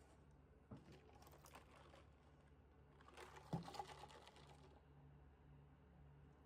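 Quiet typing on a Monstargear Ninja 108SE keyboard: two short runs of key clicks, the second with one louder knock about three and a half seconds in.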